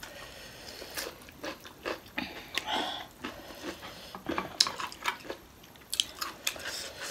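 People eating at close range: chewing and mouth smacks over spicy instant noodles, with scattered short sharp clicks of a fork against a plate and dishes.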